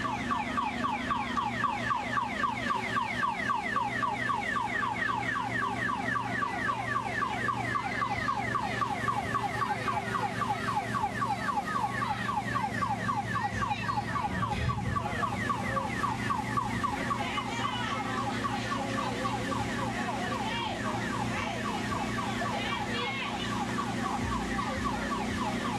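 Electronic siren of a mini fire truck kiddie ride, a fast repeating falling wail several times a second, over a steady low hum. The siren fades somewhat in the second half.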